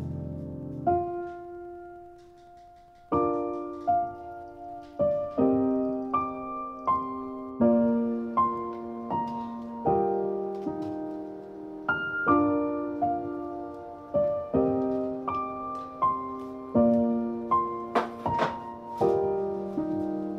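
Background piano music: an unhurried piano piece of single notes and chords, each struck and left to ring and fade, with a short lull about two seconds in.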